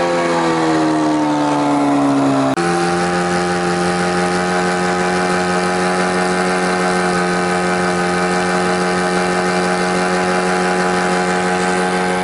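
Detroit Diesel 4-53 two-stroke diesel engine of a Timberjack 450 skidder running hard at high revs. Its pitch sags over the first couple of seconds, then jumps abruptly to a steady, slightly higher note about two and a half seconds in.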